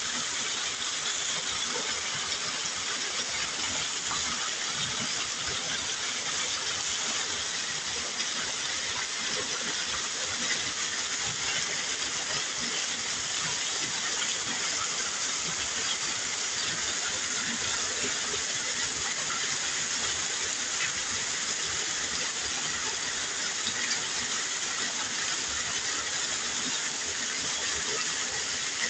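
Heavy rain falling in a steady hiss, with runoff pouring off a roof edge close by and splashing onto wet ground.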